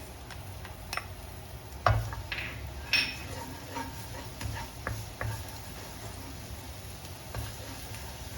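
Garlic sautéing in hot oil in a wok, a soft sizzle under a spatula stirring and clicking against the pan. There are sharp knocks about two and three seconds in.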